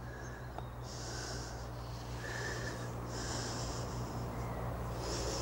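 A man breathing audibly through his nose, short hissing breaths about once a second, over a faint low steady hum.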